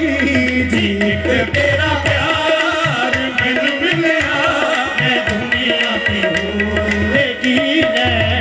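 Live qawwali music: harmonium melody over tabla drumming, with singing voices.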